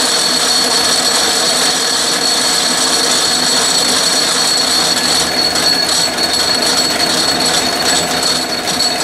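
Atlas metal lathe running under power, a steady belt-and-gear whir with a high whine, as the threading tool takes a light spring pass inside a steel part. Irregular faint clicking joins in about five seconds in.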